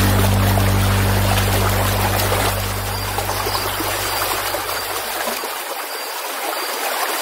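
Stream water running steadily. Low notes of background music fade out about two-thirds of the way through.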